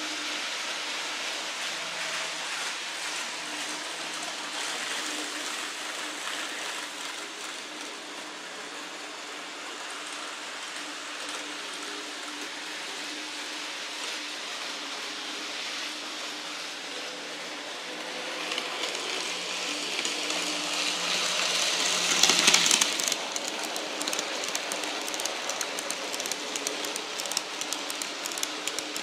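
N-gauge model trains running on the layout: a steady hissing rumble of small wheels and motors on the track with a faint hum. It swells as a train comes close, peaks about two-thirds of the way through, then turns into rapid clicking of wheels over the rail joints.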